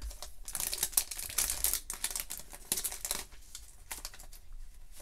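Clear plastic card sleeve crinkling and rustling as it is opened and handled, with scattered light clicks.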